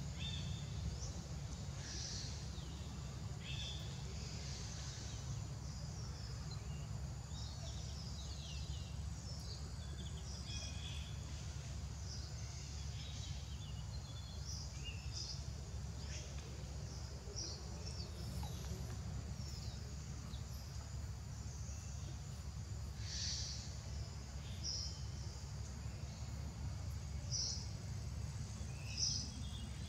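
Outdoor ambience: scattered short bird chirps over a steady low rumble, with a few louder chirps near the end.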